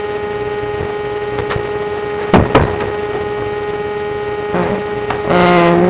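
Steady electrical hum with one strong tone, with two sharp clicks in quick succession about two and a half seconds in.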